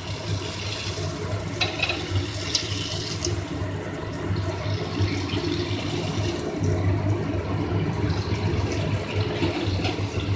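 Semolina pani puri dough discs deep-frying in hot oil in a kadhai: a steady sizzle and bubbling, with scattered sharp crackles, as the puris puff up.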